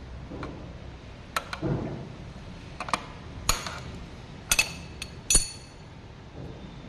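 Metal tools and parts clinking and knocking against each other: about six sharp strikes spread out, the two loudest near the end ringing briefly.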